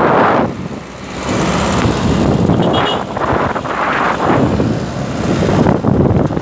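Wind buffeting the microphone over the running engine and road noise of a moving truck, heard from its open cargo bed; the noise surges and eases unevenly.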